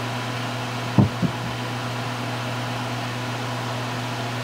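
Steady low hum with fan-like noise, and two brief soft sounds about a second in.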